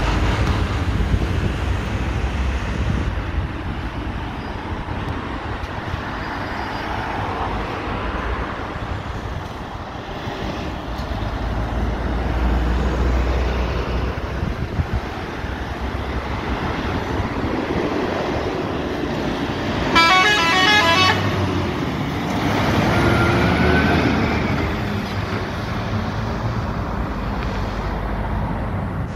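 Scania tipper truck's diesel engine running as it drives through a roundabout, getting louder as it passes close. About two-thirds of the way in, a truck horn gives a short pulsing blast.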